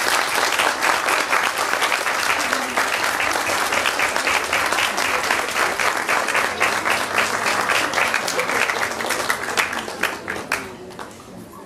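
Small audience applauding, the clapping thinning out and dying away near the end.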